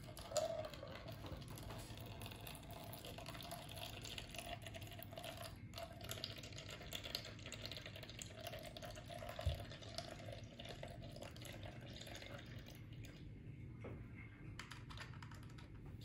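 Wash water draining from a mini eyelash and makeup-brush washing machine's drain hose and trickling faintly into a plastic cup. It runs steadily and dies away about three-quarters of the way through.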